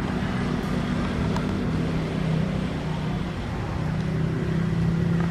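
Engine running steadily, a low hum whose pitch drops slightly about two seconds in.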